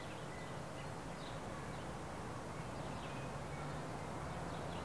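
Faint steady background hiss with a low hum, and a few faint, short high chirps.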